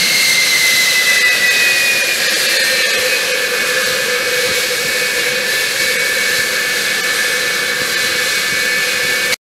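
An F-4 Phantom's twin J79 turbojets running on a ground test run: a loud jet roar with the J79's high howling whine, which drifts slightly lower in pitch. The sound cuts off suddenly near the end.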